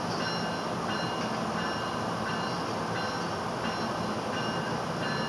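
NJ Transit multilevel commuter train standing at the platform: a steady hum from its running equipment, with a high electronic beeping over it, pulsing about twice a second.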